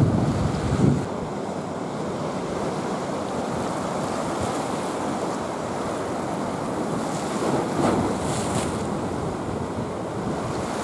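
Sea water washing against the breakwater, with wind buffeting the microphone. It is louder and deeper in the first second and swells briefly again about eight seconds in.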